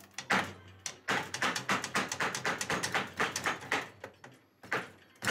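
A hammer strikes metal on the rear skid axle of a snowmobile, knocking at the tight, corroded axle to drive it out. There is a quick run of blows about five a second, a short pause, then a few more near the end.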